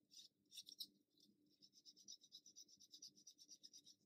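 Faint, quick rhythmic rubbing strokes, several a second, on a small plastic kit part: the last of the sprue gates being cleaned off a plastic propeller blade. A few louder strokes come in the first second.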